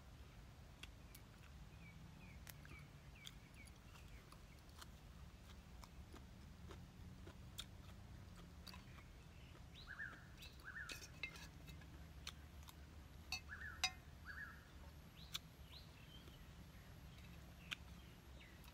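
Near silence with faint scattered clicks and taps from eating by hand and spoon, and a few short bird chirps, most of them about halfway through.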